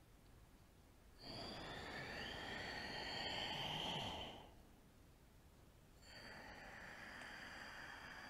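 A woman breathing deeply in time with cat-cow spinal movements. There is a long exhale starting about a second in as the spine rounds, growing louder toward its end, then a softer inhale near the end as the back dips.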